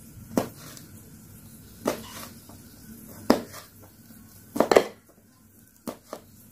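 Kitchen knife slicing red chilies on a plastic cutting board: separate sharp knocks of the blade hitting the board, a second or so apart, with a quick run of strokes about three-quarters of the way through.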